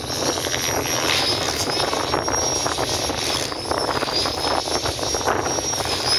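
Aircraft engine noise: a steady roar with a wavering high whine.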